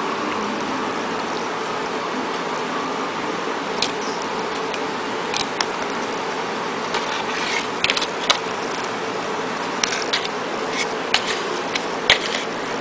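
Light clicks and taps of a plastic stick and a drinking straw against a plastic tray while a candy paste is stirred, scattered and irregular, over a steady hiss of background noise.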